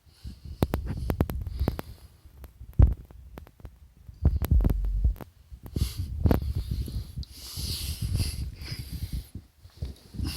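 Kitten purring close to the microphone, a low throbbing rumble, with scattered clicks and rubbing noises and a few soft breathy hisses.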